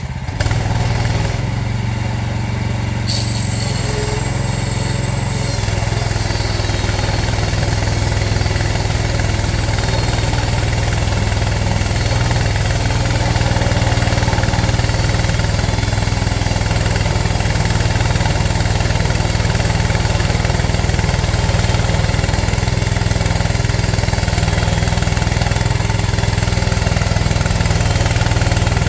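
Frontier portable bandsaw mill running: its gas engine drones steadily, with a jump in level just after the start, a hiss joining in about three seconds in, and the level rising slowly after that.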